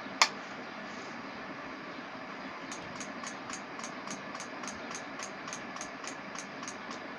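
Rocker power switch on a battery charger clicked once, sharply, about a quarter second in. From a little before the halfway point there is a steady run of faint quick ticks, about four a second, over a constant background noise.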